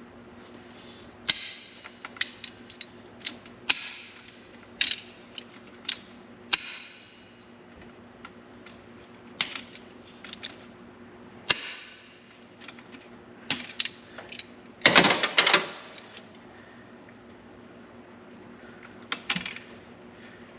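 Pliers crushing and breaking apart an old plastic kickdown-cable end: irregular sharp cracks and clicks, with a dense run of cracking about fifteen seconds in. A faint steady hum runs underneath.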